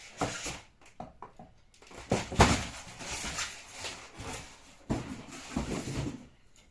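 Knocks, bumps and rustling as a heavy sewing machine head and its packaging are handled, with sharper knocks about two and a half seconds and five seconds in.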